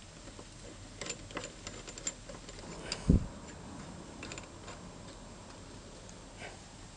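Light metallic clicks and clinks of a two-jaw puller being fitted by hand onto a steel plate bolted to a scooter flywheel, with one dull thump about three seconds in.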